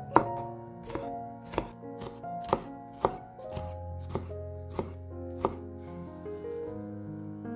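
Knife chopping vegetables on a cutting board, about nine slow, separate strokes that stop about five and a half seconds in, over soft background music.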